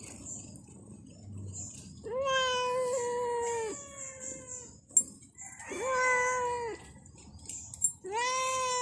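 A cat meowing: three long, drawn-out meows a few seconds apart, each holding a fairly steady pitch before dropping off at the end. A short sharp click falls between the second and third meows.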